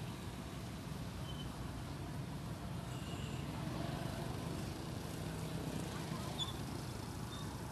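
Steady low rumble of street traffic around an outdoor food stall.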